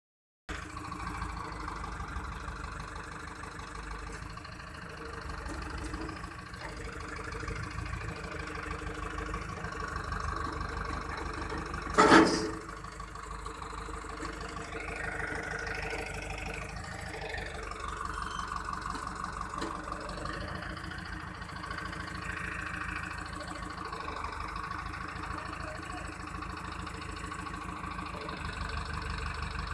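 Escorts Hydra 14 mobile crane's engine running steadily as it lifts a load, with one sharp, loud bang about twelve seconds in. A few seconds after the bang the engine's pitch rises and falls as it works.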